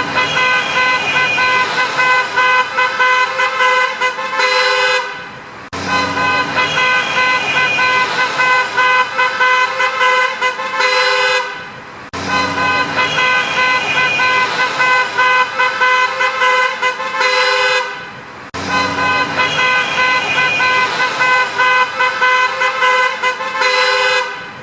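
Car horns honking over and over in passing road traffic: many short toots, some held longer, over the hiss of traffic noise. The same stretch of about six seconds repeats four times, each starting abruptly and fading out at its end.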